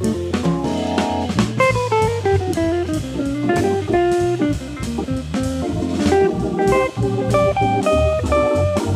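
Jazz organ trio playing a swing tune: an electric guitar plays a quick single-note line over Hammond organ and a drum kit with steady cymbal strokes.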